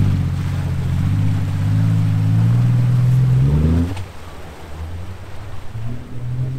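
Jeep Wrangler TJ engine revving under throttle as it drives into deep swamp water, its pitch climbing steadily. The sound drops away suddenly about four seconds in, leaving a quieter, uneven engine sound.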